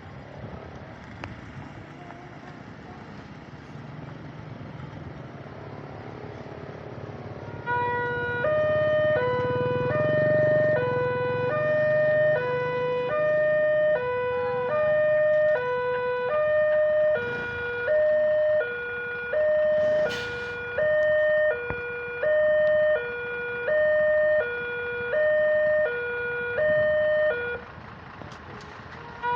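Newly installed electronic warning siren at a railway level crossing, sounding a two-tone hi-lo wail that switches pitch about every 0.7 seconds, the signal that a train is approaching. It starts about a quarter of the way in after a low rumble, and cuts off shortly before the end.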